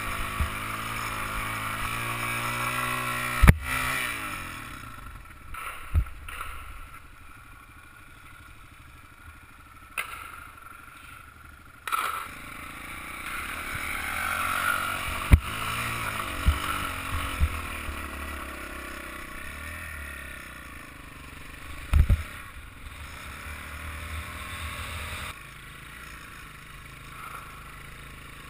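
Off-road trail motorcycle engine heard from the rider's helmet camera, its pitch rising and falling with the throttle. Several sharp knocks and clatters come through as the bike jolts over rutted ground.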